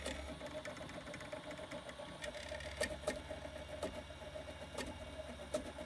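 Homemade 3D printer built from CD-ROM drive mechanisms printing: the stepper motors buzz and whir steadily as they drive the print head and bed, over the low hum of the hot end's cooling fan. A few light clicks come through now and then.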